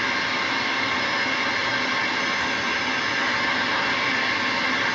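CB radio receiver static: a steady, even hiss on the open channel, with no voice coming through.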